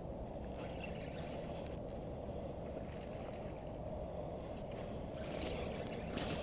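Steady low rush of flowing creek water, with a couple of brief faint scratchy sounds near the end.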